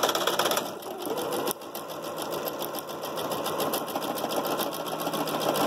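Electric domestic sewing machine running steadily, its needle stitching a straight seam in rapid, even strokes. It gets a little quieter about a second and a half in.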